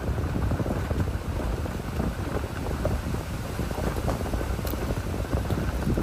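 Wind buffeting the microphone during a ride: a steady low rumble with a scatter of small crackles and ticks.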